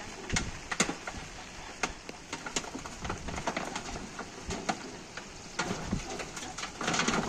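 Rain falling, with many irregular sharp taps scattered through it.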